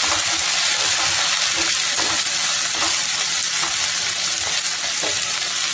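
Green peas and onion frying in hot oil in a pan, a steady sizzle, stirred with a spatula.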